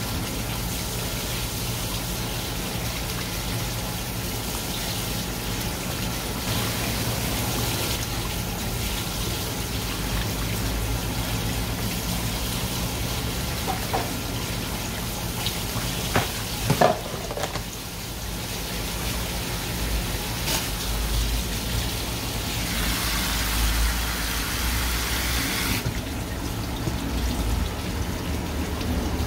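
Water running steadily from a tap into a sink, over a low steady hum. There are a few short knocks around the middle, and the water grows louder for a few seconds near the end.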